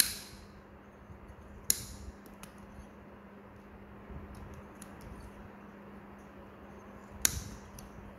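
Steel nail nippers snipping through a thick, fungus-infected toenail: three sharp clicking snips, with fainter ticks between. A steady low hum runs underneath.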